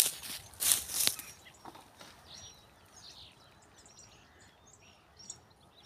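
Small birds chirping faintly, many short high calls scattered over a few seconds. Before them, in the first second, come a few loud rustling crackles.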